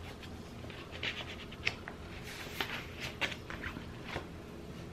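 Soft rustling and light taps of paper and small craft items being handled on a tabletop, a scatter of faint, brief sounds.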